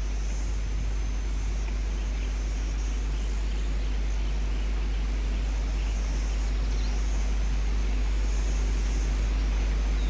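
Steady low rumble with an even hiss, growing slightly louder towards the end, and a few faint, short high chirps.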